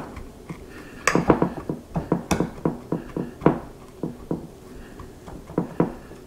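Spatula patting a graham-cracker crumb crust down into a pie dish: a run of irregular sharp taps, about three a second.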